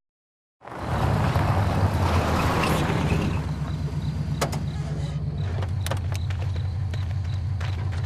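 A car engine idling with a steady low hum, under a rushing noise that fades after about three seconds. From about four seconds in come several sharp clicks and knocks.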